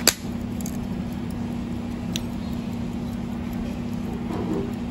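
A sharp click as the hunter-case lid of a Soviet Molnija pocket watch is sprung open, then a few faint small clicks from handling the case. A steady low hum runs underneath.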